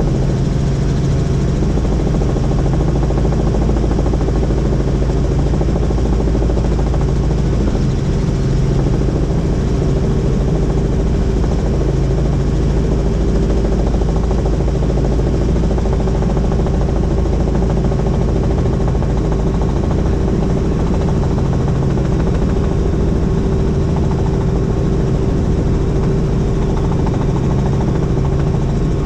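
Helicopter's rotor and turbine engine running, a loud steady drone with a constant hum.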